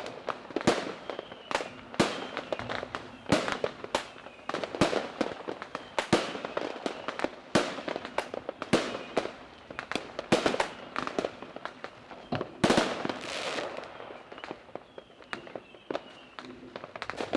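Fireworks going off: a rapid, irregular series of sharp bangs, a few each second, with crackling between them and a denser cluster of bangs about two-thirds of the way through.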